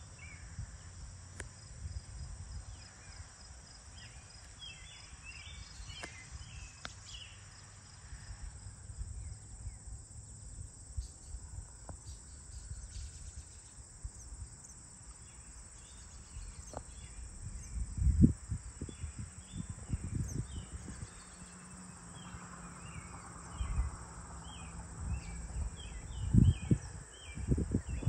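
Evening chorus of crickets and other insects trilling steadily, with birds giving short repeated chirps. In the second half, low rumbling gusts of wind on the microphone swell up several times, loudest about two-thirds of the way through and near the end.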